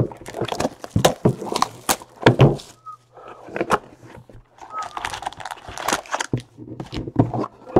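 Shrink wrap torn off a cardboard trading-card box, then the box lid opened and the foil packs inside handled: irregular crinkling, rustling and light knocks throughout.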